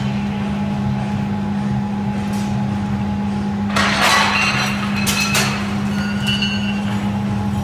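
Steady low industrial hum of the furnace and mill machinery. About four seconds in, a red-hot CPM-S35VN steel sheet scrapes as it is dragged out of the furnace onto a wheeled cart, followed by a few metallic clinks.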